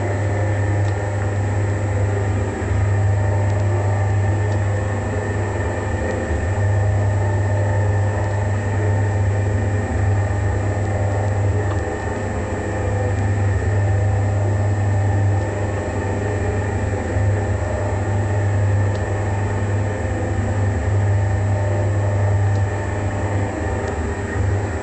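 Mirror grinding and polishing machine running while polishing a 10-inch telescope mirror: a steady low motor hum with a noisy rubbing layer above it, the level swelling and easing slightly every few seconds.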